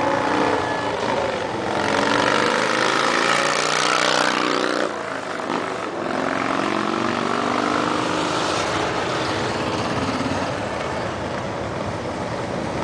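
Harley-Davidson V-twin motorcycles riding past one after another, each engine note rising as it approaches and dropping as it goes by. The loudest pass comes about five seconds in.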